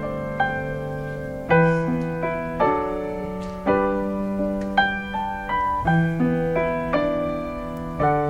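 Solo piano playing slow, sustained chords, a new chord struck about once a second and left to ring.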